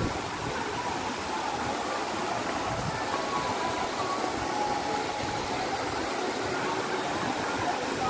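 Steady rushing noise of a waterfall, with faint distant voices of a crowd.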